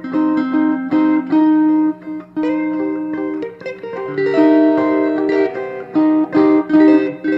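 Two Fender Telecaster rhythm guitar parts played together through a custom-built amplifier, one on both pickups and one on the bridge pickup. Short picked phrases of single notes and chords overlap and answer each other, with brief gaps between them.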